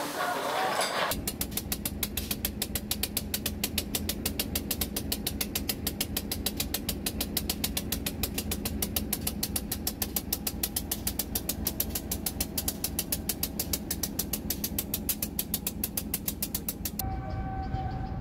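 Diesel locomotive engine running at idle with a rapid, regular beat; the sound changes abruptly near the end.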